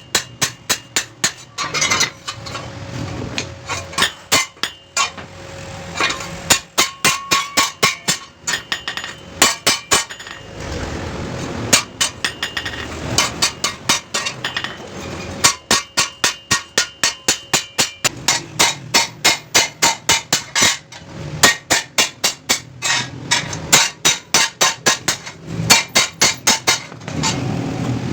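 Steel hammer striking a chaff cutter blade on an anvil in a fast series of metallic blows, several a second, in runs broken by short pauses.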